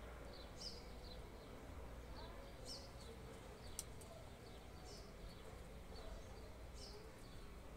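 Faint high chirps from a small bird, repeating irregularly about once a second, with a single sharp click about four seconds in.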